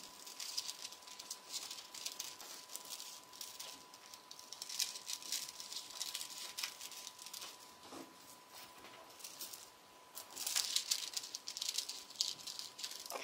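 Scissors cutting through thin pattern paper: runs of quick, crisp snips, with a pause about two thirds through and a louder run near the end.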